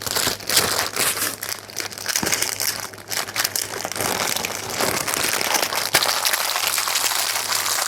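Plastic packaging crinkling and rustling as it is handled, with a constant irregular run of small crackles.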